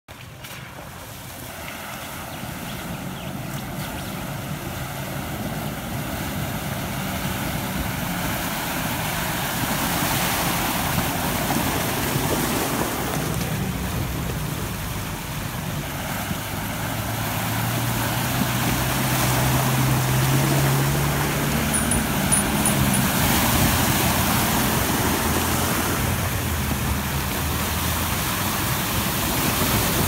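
Four-wheel-drive vehicles fording a shallow river: engines running low and steady while water rushes and splashes around the wheels. The sound grows louder as the vehicles come nearer, and the engine note strengthens about two-thirds of the way through.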